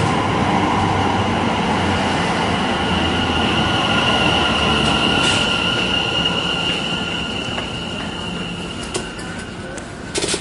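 Train running on the rails with a steady high-pitched wheel squeal over its rumble, growing quieter over the last few seconds. A brief sharp rattle comes just before the end.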